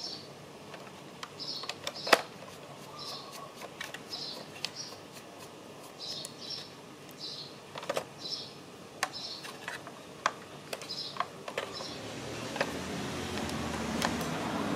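A small bird chirping over and over in short high notes, often in pairs, mixed with sharp clicks and taps of small plastic parts being handled, the loudest about two seconds in. A steady rushing noise swells near the end.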